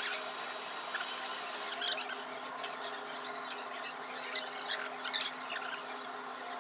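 Mukbang eating sounds: two people chewing grilled chicken and rice and picking at it with their fingers on plastic plates, heard as many small, irregular clicks and smacks over a steady hum.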